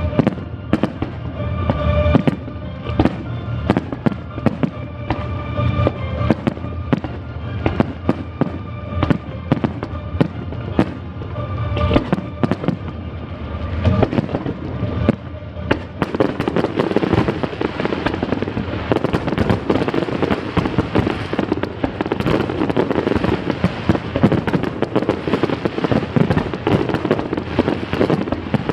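Fireworks going off in quick succession over music playing from loudspeakers. About halfway through, the bangs thicken into a dense, continuous crackling barrage and the music is lost under it.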